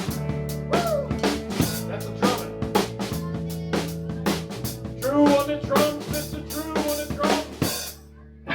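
Rock band playing the instrumental ending of a song: drum kit with snare and bass drum, a bass line, and lead guitar bending notes, stopping abruptly about eight seconds in.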